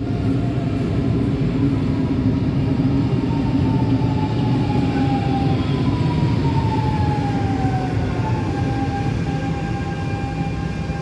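Lisbon Metro electric train running into an underground station platform, a steady rumble of wheels and running gear. A thin whine drops in pitch about halfway through, then holds steady.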